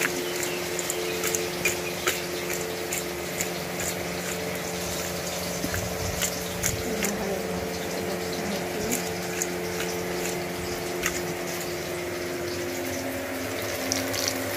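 A steady low hum from a running machine, with scattered small clicks and taps of a steel colander of raw shrimp being handled.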